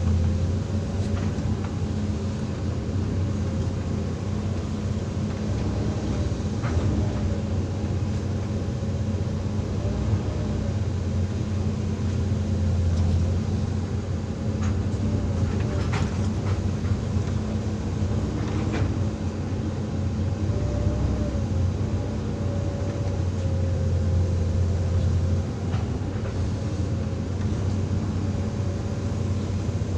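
Hydraulic excavator's diesel engine running steadily under working load, with a faint wavering whine and a few short knocks as it digs and loads soil.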